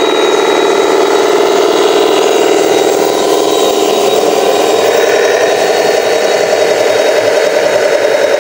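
Radio-controlled truck's electric motor and gearbox whining steadily under load, the pitch rising a little about halfway through.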